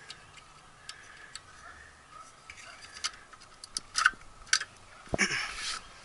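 Scattered metal clicks and handling sounds at an outdoor air-conditioner disconnect box as the fuse pull-out is put back and power restored, then a single thump and a short rustle about five seconds in. No compressor or fan starts up: the thermostat is running its time delay.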